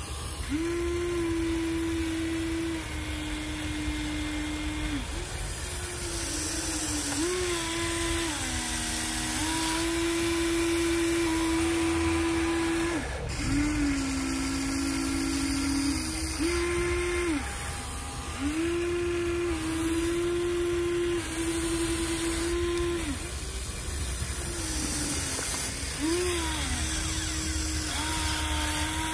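Huina 1593 radio-controlled excavator whining as it works its boom, arm and bucket. The whine starts and stops every few seconds and steps up and down in pitch as different movements run, with short glides between.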